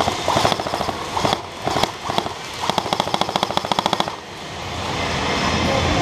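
Airsoft electric rifle firing on full auto in several bursts, each a rapid, even clatter of shots; the longest burst runs about a second and a half and stops about four seconds in.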